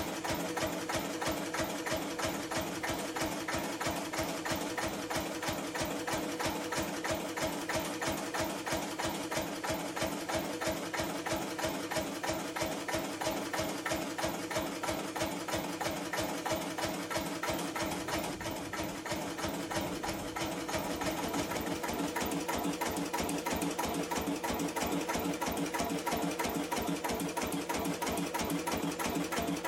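1953 Lister CS 3.5 HP single-cylinder diesel stationary engine running steadily with an even, rapid beat. The sound shifts in tone about two-thirds of the way through, then runs on steadily.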